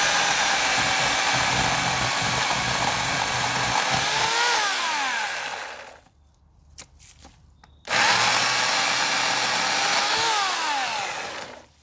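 Portland 14-inch electric chainsaw with a 9-amp motor cutting through a small tree trunk in two runs of a few seconds each, with a pause in between. Each time the trigger is released, the motor's pitch falls as the chain coasts to a stop.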